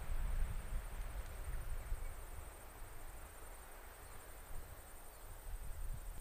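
Open-country ambience: wind buffeting the microphone as a low rumble, strongest at the start, under a steady, rapidly pulsing high-pitched trill of insects in the grass.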